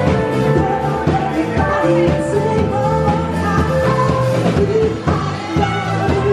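Background music: a pop-rock song with singing over a steady beat.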